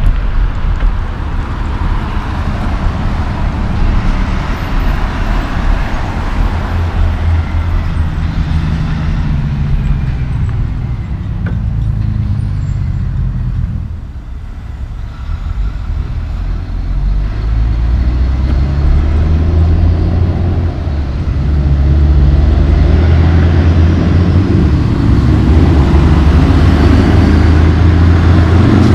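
Road traffic dominated by diesel big-rig semi trucks running past, with cars mixed in. A truck engine grows louder over the last several seconds as a loaded semi approaches.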